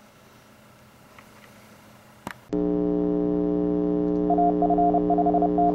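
Quiet room tone, a click, then a loud steady electronic drone of several held tones that starts suddenly about two and a half seconds in; from about four seconds in, a higher tone beeps on and off over it in short and long pulses.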